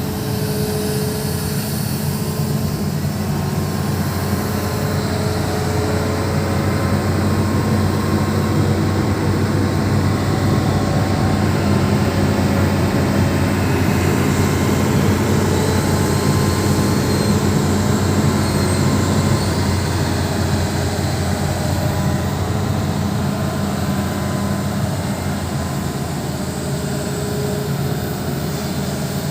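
Hitachi 210 excavator's diesel engine running steadily: a continuous low engine drone that swells slightly in the middle.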